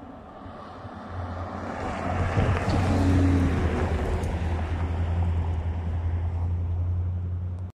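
Diesel locomotive on an approaching train, a steady low engine drone with rushing wind noise on the microphone, building about a second in and cutting off abruptly at the end.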